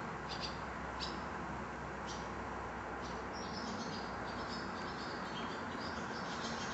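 Small birds chirping, then a run of short high warbling notes from about halfway in, over a steady low rumble of a distant approaching electric train.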